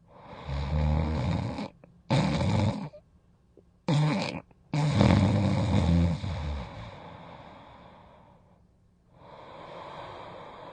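A person snoring loudly: four rough snores in quick succession, the last one longer and trailing off, then a softer breath near the end.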